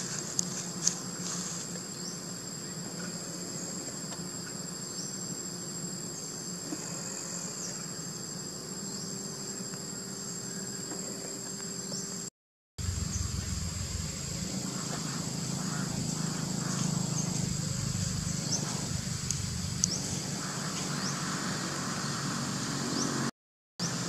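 Steady high-pitched drone of an insect chorus, holding two pitches, with a few sharp clicks near the start. The sound drops out completely for a moment about halfway and again near the end.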